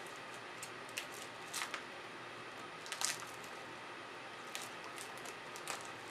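Clear plastic strawberry clamshell and its thin plastic wrapping crinkling and clicking as hands open and handle it: scattered short crackles, loudest about three seconds in, over a faint steady hiss.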